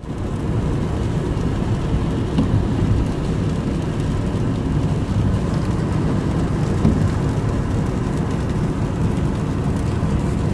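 Steady low rumble of a moving passenger vehicle, heard from inside the cabin.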